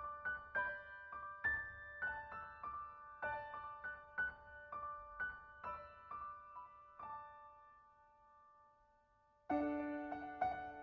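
Background piano music: a gentle melody of single struck notes that dies away about seven seconds in. After a short near-silent gap, a louder passage with lower notes begins near the end.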